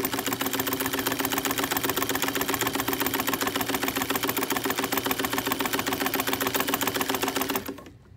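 1954 Singer 99K electric sewing machine running at steady speed, its needle clattering rapidly and evenly over a steady motor hum as it stitches through layered denim. It stops abruptly near the end.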